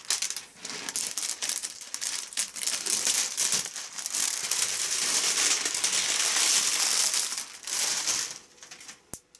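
Thin protective plastic film being peeled off and crumpled by hand: a steady crinkling and crackling of plastic that dies away about a second before the end.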